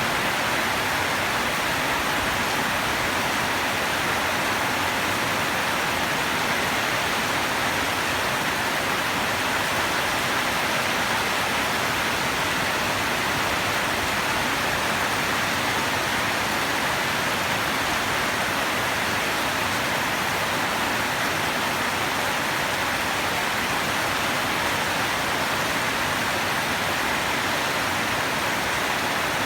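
Steady rain falling, a constant even hiss with no thunder or separate drips standing out.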